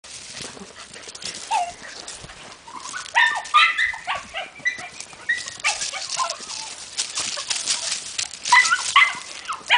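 Lagotto Romagnolo truffle dog giving short high-pitched whines and yips in two clusters, a few seconds in and near the end, over the crackle of dry leaves and brush underfoot.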